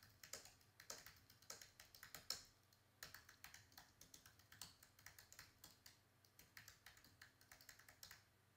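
Faint computer keyboard typing: a fast, irregular run of key clicks that stops about eight seconds in.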